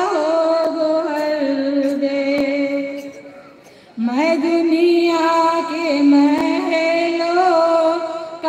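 A solo voice singing a devotional Urdu naat over a microphone with no instruments, holding long drawn-out notes with a wavering vibrato; one phrase fades out about three seconds in and a new phrase begins about a second later.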